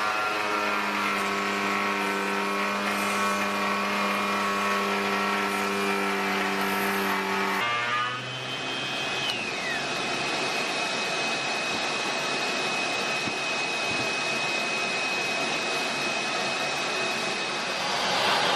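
Electric wood router running at speed and cutting timber, a steady motor whine. About eight seconds in the tone changes abruptly to a noisier cutting sound with a steady high whine.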